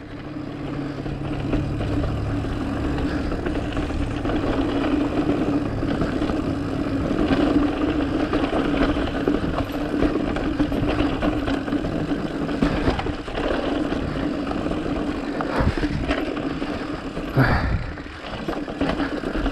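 Mountain bike rolling down a dirt flow trail: steady tire noise with a low hum, and a few knocks over bumps near the end.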